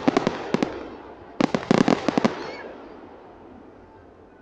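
Fireworks shells bursting into crackling stars: rapid runs of sharp pops, with a second cluster about a second and a half in, each dying away in a rolling echo.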